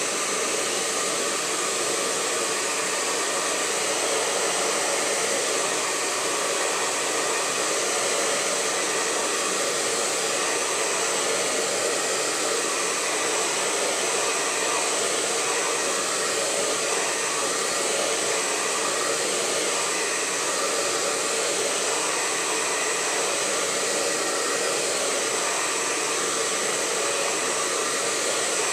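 Handheld blow dryer running steadily, blowing air onto a canvas to dry wet acrylic paint.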